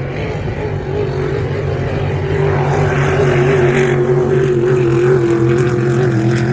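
Racing motorboat engine running with a steady drone, growing louder over the first few seconds, its pitch wavering and easing slightly lower toward the end.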